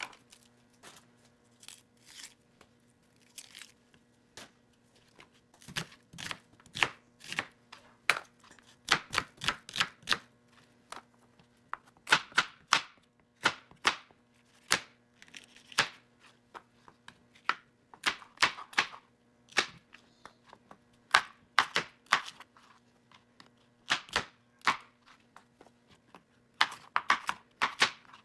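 Chef's knife slicing an onion and then a red bell pepper into strips on a plastic cutting board: irregular runs of sharp knocks as the blade strikes the board, with short pauses between runs.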